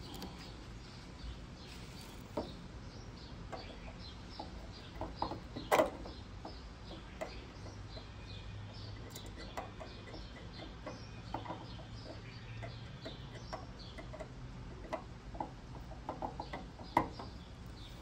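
Small metallic clicks and taps of a screwdriver turning a tiny screw and lock washer on a fuel-cap trigger catch, the sharpest a little before the middle and near the end. Birds chirp throughout.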